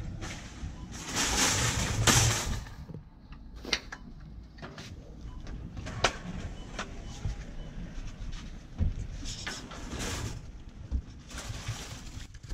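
Handling noise from a Segway Ninebot ES4 electric kick scooter being folded and lifted into a metal shopping cart: scattered sharp clicks and knocks, with the cart rattling near the end. A louder rushing noise runs for about a second near the start.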